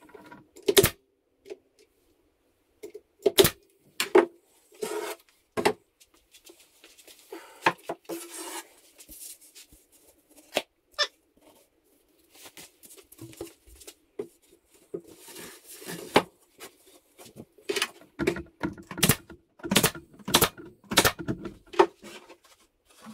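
Wooden drawer panels and a hardboard drawer bottom being handled and fitted together: scattered sharp knocks and clacks, with a couple of longer stretches of scraping as a panel slides into place.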